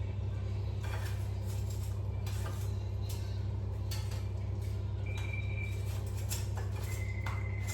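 Dishes and utensils clinking as curry and rice are served onto a plate: scattered short clicks, with a couple of brief ringing clinks about five and seven seconds in, over a steady low hum.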